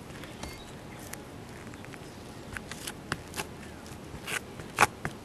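A hand tool dabbing and spreading thick fibered roofing cement (Karnak flashing cement) over a patch on a rubber roof: a scatter of short sticky clicks and scrapes starting about two and a half seconds in, the sharpest one near the end, over a steady low hiss.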